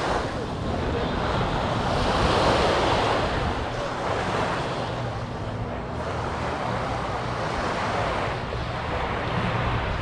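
Ocean surf washing onto the beach, swelling to its loudest about two to three seconds in, with wind buffeting the microphone underneath.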